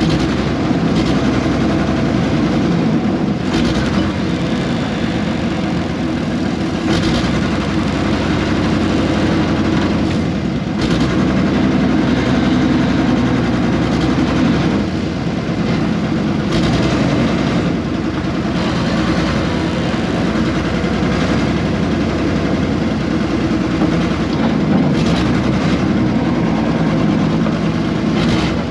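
Air-cooled Deutz diesel engine of a 1970s RM.80 excavator running steadily, with a few short knocks over it.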